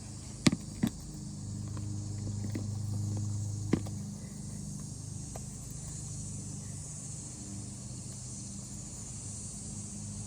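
Steady high chirring of insects, with a low steady hum beneath. Three short sharp taps, about half a second, about a second, and almost four seconds in.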